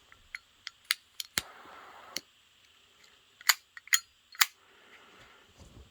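A series of sharp clicks and snaps, about eight, from small everyday-carry items being handled. The strongest comes about a second and a half in and is followed by a short hiss.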